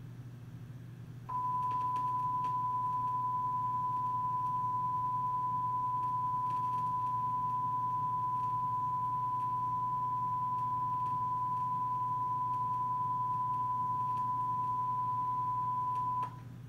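A single steady pure tone, like a tape test tone, plays from the VHS tape through the TV speaker. It starts abruptly about a second in, holds unchanged for about fifteen seconds and cuts off suddenly. It sounds with the tape's white-screen fault, over a low steady hum.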